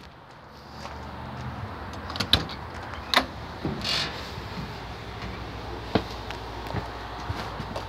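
Vehicle door being handled as someone climbs up a perforated metal step into the cab: a few separate knocks and clicks over a steady low hum.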